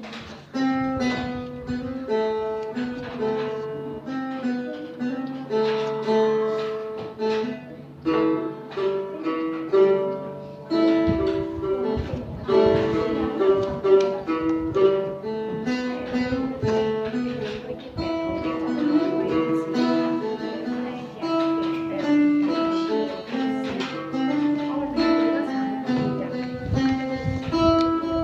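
Phin, the Isan plucked lute, playing a quick melody of single plucked notes over a steady drone.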